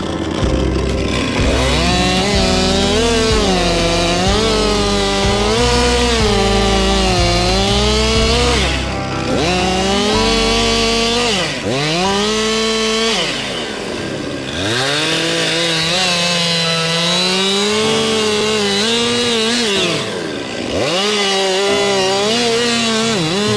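Two-stroke chainsaw running at high revs while cutting wood, its pitch wavering under load. Several times the engine drops steeply toward idle and revs back up as the throttle is let off and squeezed again.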